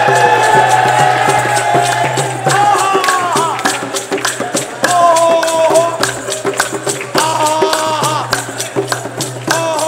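Punjabi folk music: a dholak drum beats a steady rhythm under a held, gliding melody line over a low drone.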